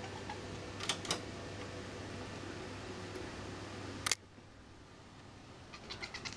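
Two light taps about a second in, a cat's paw and claws against the plastic grille of a window air conditioner, over a steady low hum. About four seconds in there is one sharp click, after which the hum suddenly drops away.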